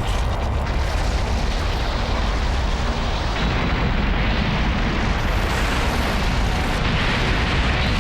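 Continuous deep rumbling explosion sound effect, steady and unbroken, with no separate blasts standing out.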